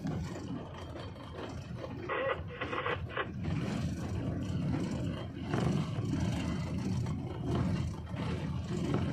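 A GE U20C (GEU-20) diesel-electric locomotive running under way, heard from its outside walkway as a steady low rumble of engine and running gear. A brief rougher, brighter burst comes about two seconds in.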